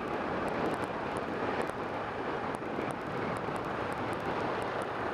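Steady rush of riding wind on the microphone from a 2015 Kawasaki Ninja 650, with the bike's parallel-twin engine running underneath at an even speed.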